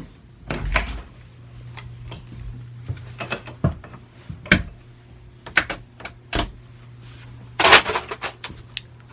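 Handling and moving-about noises: a scatter of sharp clicks and knocks, with a louder rustling burst about three-quarters of the way through, over a low steady hum.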